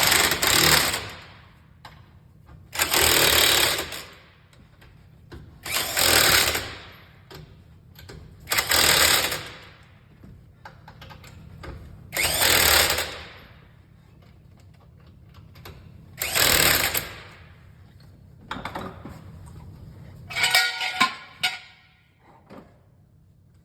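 Pneumatic impact wrench with a torque-limiting extension tightening the wheel's lug nuts in six short loud bursts about three seconds apart. A brief metallic clatter follows near the end.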